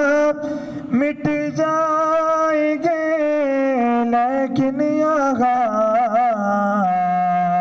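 A man singing an Urdu naat without accompaniment. His voice bends through ornamented, wavering phrases and settles into long held notes near the end.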